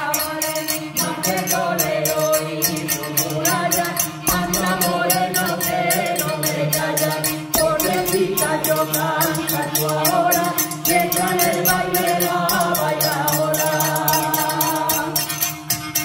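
Voices singing a folk tune in unison over a fast, even percussion beat from household objects: a frying pan struck with a stick, a glass bottle and small brass hand cymbals, with a gourd-resonated musical bow.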